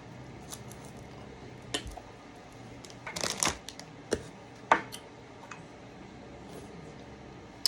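Scattered light clicks and crinkles of candy packaging being handled: a single click about two seconds in, a brief cluster of rustling near the middle, then a few separate clicks.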